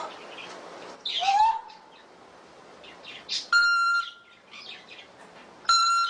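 African grey parrot calling: a short rising squawk about a second in, scattered chirps, and two flat beep-like tones, one about halfway through and one at the end.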